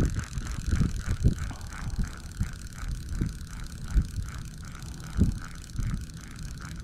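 Fishing reel being cranked to retrieve the line, its gears turning in an even rhythm of about four pulses a second. Several low thumps of wind on the microphone.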